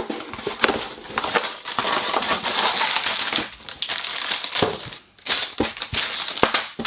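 A small LEGO set's cardboard box being opened by hand and its plastic parts bags crinkling as they are handled, with scattered sharp clicks and knocks. It stops briefly about five seconds in.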